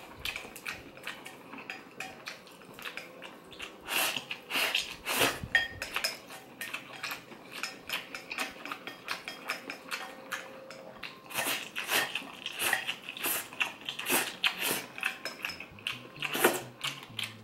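Wooden chopsticks clicking and scraping against a ceramic bowl as the last noodles are scooped up, in irregular clusters of sharp taps.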